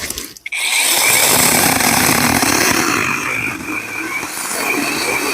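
Imoum Live battery-powered mini chainsaw running at full speed through wood: a steady high electric motor whine over the rasp of the chain, starting about half a second in.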